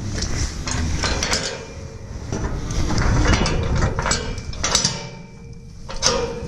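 Galvanised steel cattle-yard gate being handled and latched: repeated metal clanks and rattles of the bars and latch, with a short ringing of the metal in the second half.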